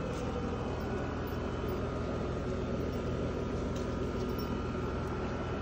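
Steady low mechanical hum with a faint high steady whine over it, unchanging throughout.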